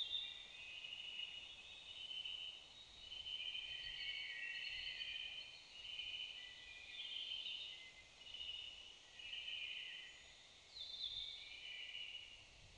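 Several songbirds singing in overlapping high phrases, each about half a second to a second long, one after another with short gaps.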